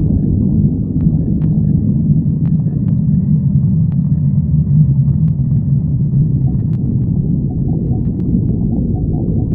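Stomach growling: a continuous low rumbling growl, fullest from about three to six seconds in, with a few faint clicks over it.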